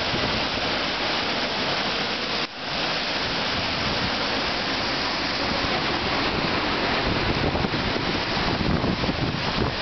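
A river in flood rushing through a concrete channel: a steady, loud wash of muddy water churning and breaking, with wind buffeting the microphone. The sound briefly drops out about two and a half seconds in.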